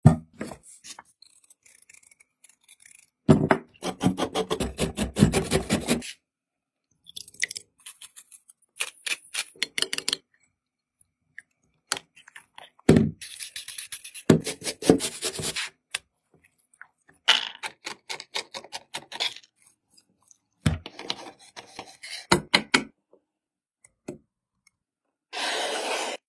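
Close-up food-preparation sounds in separate bursts with short silences between: a knife cutting into a celeriac on a wooden cutting board, runs of quick rhythmic scraping strokes, and a Y-peeler scraping the skin off an apple. A short steady hiss near the end.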